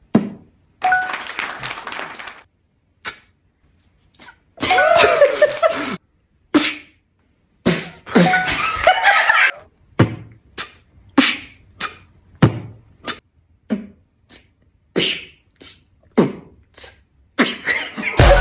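Mouth-made sound effects from a beatboxer: a few longer breathy, hissing stretches with sliding pitch, then a quick run of short, sharp popping sounds about twice a second, with silent gaps between.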